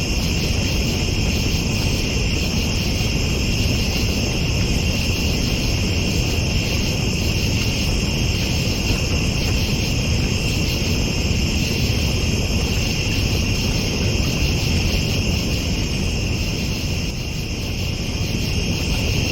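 Night insects chorusing in a steady, unbroken high trill, over a constant low rumble.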